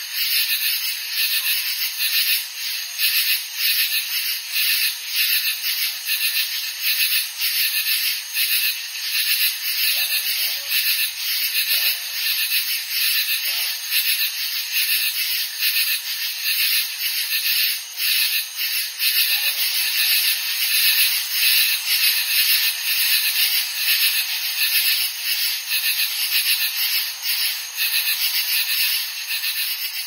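Katydids calling: a high-pitched, raspy, hissing buzz repeated in quick, even pulses.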